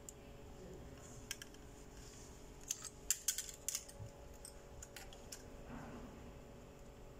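Sharp light clicks and taps from a soldering iron and a short piece of pixel LED strip being handled on a work bench: a couple of single clicks, then a quick cluster of about ten in the middle, and a few more after.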